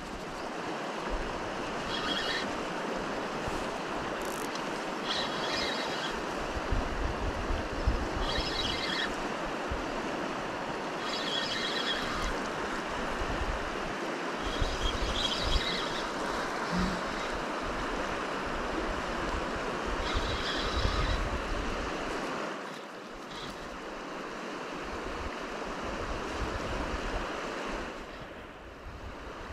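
Fast river current rushing over stones, a steady wash of water noise, with wind buffeting the microphone. A short high-pitched sound repeats about every three seconds through the first two-thirds.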